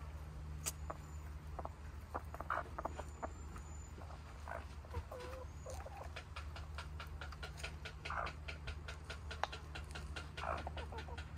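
Hens softly clucking and murmuring while pecking at food, with scattered sharp taps and a quick run of beak pecks in the middle. A steady low hum lies underneath.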